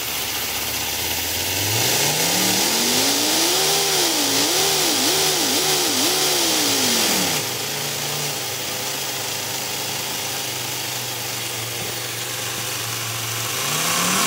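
3D-printed V10 compressed-air engine running. It revs up, rises and falls quickly several times, drops back to a steady low idle, and starts to rev again near the end, with a strong hiss of air throughout. Lots of leaks and poor build quality hold it to a little over 5000 RPM.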